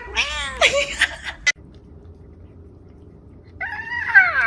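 Domestic cat meowing loudly for about a second and a half, cut off suddenly. After a quiet gap comes a high-pitched cry that slides down in pitch near the end.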